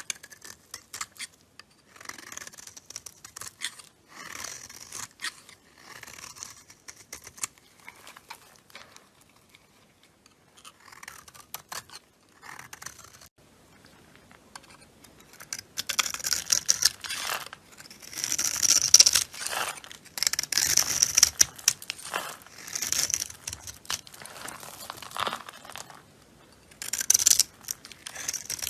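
A blade carving and cutting into a bar of dry soap: a series of crackling, scraping strokes, with a lull partway through and louder, denser cuts in the second half.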